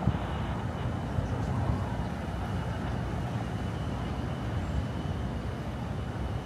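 Steady low rumble of city traffic, with a faint thin high tone running through it.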